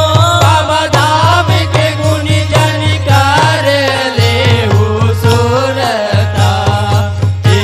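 Live devotional bhajan music: a wavering melody line over a steady beat on hand drums, dholak and mandar.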